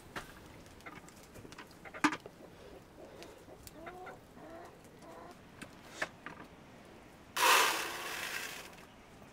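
Wood fire crackling with scattered sharp pops, and a hen clucking a few times about halfway through. A little past seven seconds in comes a loud rush lasting over a second, dry grain poured from a sack into a plastic bucket.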